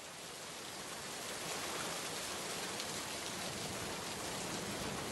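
Steady rain falling, a soft even hiss that fades in over the first second or two.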